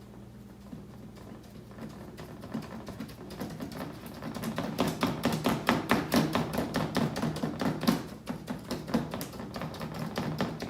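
A 2-inch bristle brush dabbed again and again against paper over cardboard to put on a tree's foliage: a fast run of dry taps that builds up about two seconds in, is loudest in the middle and eases off near the end.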